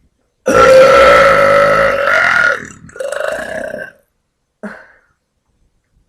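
A woman belching loudly three times. The first is a long, drawn-out burp of about two seconds, the second is shorter, and the third is brief.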